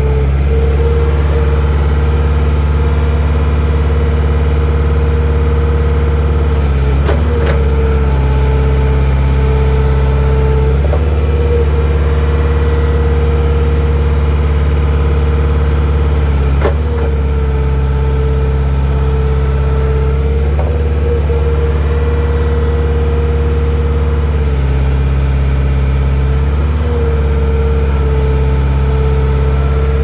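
GEHL 4840 skid steer's diesel engine running steadily, being run after fuel and hydraulic filter changes to purge air from the system. The loader arms are cycled up and down, and the engine note shifts briefly several times as the hydraulics are worked.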